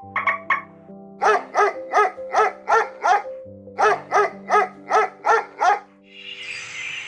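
A dog barking, with two short calls near the start and then two runs of about six quick, evenly spaced barks, over background music.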